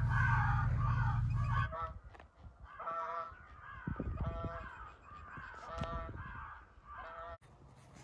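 Geese honking in flight: a run of short, clear honks about one a second. A loud steady low rumble runs under them for the first couple of seconds and cuts off suddenly.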